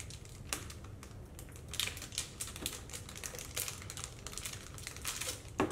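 A small plastic bag crinkling and crackling in the fingers as it is worked open, in irregular clusters of short crackles, thickest in the middle and near the end.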